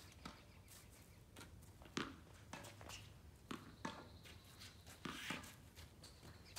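Tennis rally on a hard court: a string of faint knocks as the ball is struck by rackets and bounces on the court, roughly one every half-second to second, the loudest about two seconds in.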